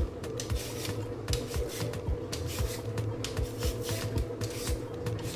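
Vegetable peeler scraping the skin off a raw potato in quick, repeated short strokes.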